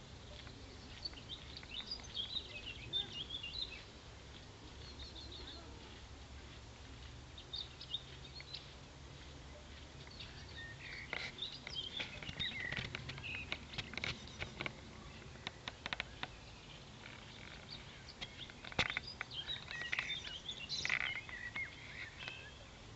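Birds chirping in scattered short calls over a low steady rumble, with a run of sharp ticks or taps a little before and after the middle.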